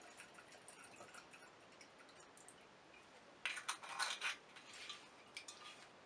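Faint scattered clicks, then a short burst of rattling and clicking handling noise about three and a half seconds in.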